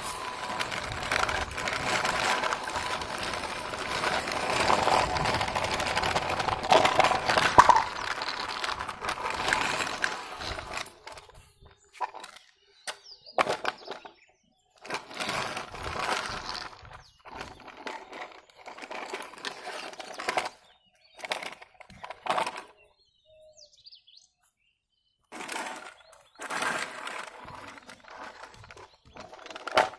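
Plastic toy dump truck pushed along rough concrete, its plastic wheels rolling and scraping. The scraping is continuous for about the first ten seconds, then comes in short separate bursts.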